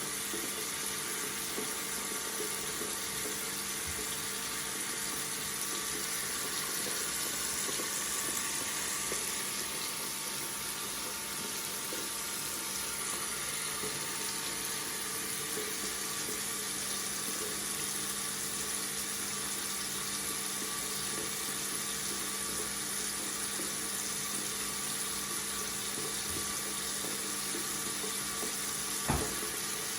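Water running steadily from a tap, with a faint steady hum underneath. A single sharp click sounds near the end.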